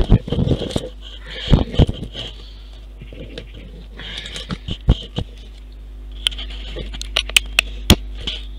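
Handling noise from a small handheld camera being moved about: scattered taps and rubbing scrapes against its body, with a quick run of sharp clicks in the last two seconds, over a steady low hum.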